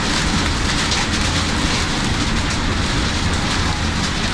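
Heavy rain hitting the windscreen of a Vande Bharat train's cab, over the steady rush of the train running at speed.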